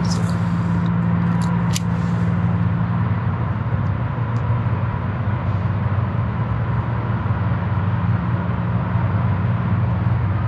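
A steady low hum over a rumbling noise, with a faint high tone held throughout; a few seconds in the hum shifts lower.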